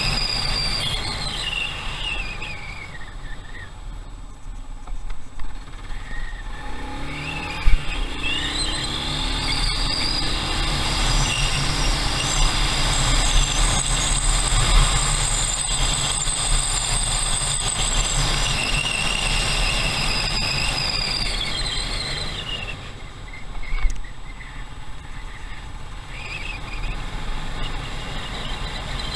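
Motorcycle riding along a road: the engine runs with a steady low rumble, and a high whine climbs over several seconds and falls away again as the bike speeds up and slows. A single sharp knock comes about eight seconds in, with a smaller one near the end.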